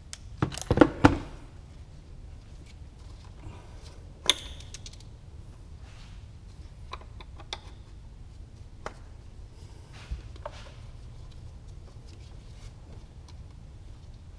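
Clicks and rattles of hands working old plastic electrical connectors and fittings in a car's engine bay: a quick run of loud clicks about a second in, one sharp click around four seconds, then scattered light ticks over a low steady hum.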